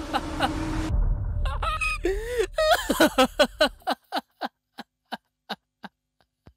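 A man's maniacal cackling laughter. About two and a half seconds in it breaks into a run of sharp 'ha' bursts, about three a second, which grow fainter and die away near the end.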